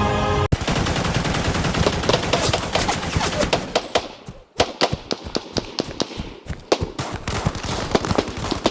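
A fast, irregular string of sharp cracks and pops like a burst of gunfire, starting as music cuts off, with a brief lull about four seconds in.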